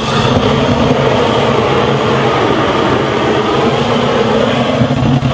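Handheld propane torch lit with a click, then burning with a loud, steady hiss as its flame sears the quail skin to crisp it.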